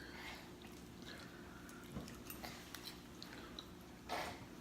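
Faint chewing and small wet mouth clicks, with a short soft burst of noise about four seconds in.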